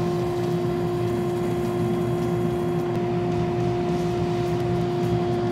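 Bridgeport milling machine spindle and a shop vacuum hose running together while a plug cutter trims a cured urethane plug flush on a bowling ball: a steady, even machine hum with a constant pitch and a rushing noise, without breaks.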